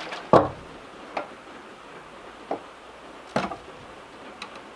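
A screwdriver prying at the lid of a metal can of timber oil: a sharp knock about half a second in, then a few lighter clicks and taps.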